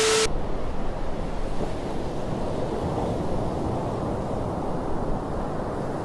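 A split second of TV static with a steady beep tone, cut off abruptly. Then sea waves wash in, with wind noise on the microphone.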